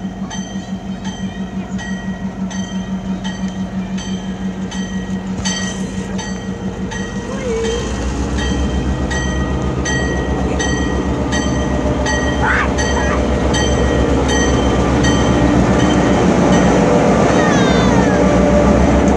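Stone Mountain diesel locomotive 6143 approaching and passing close by, with a steady, evenly repeating ringing, like a locomotive bell, running throughout. The engine's low drone gives way, about a third of the way in, to a louder rumble of engine and wheels that grows as the locomotive draws level.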